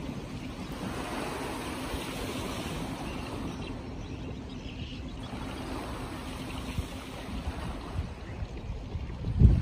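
Steady wash of river water with wind buffeting the microphone, gusting hardest near the end.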